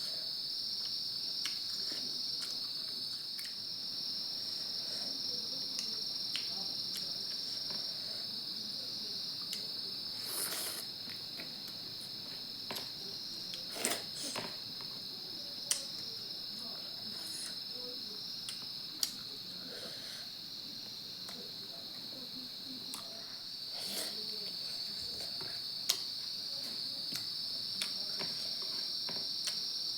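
Crickets chirring in a steady, high-pitched chorus. A few sharp clicks and faint eating sounds come and go over it.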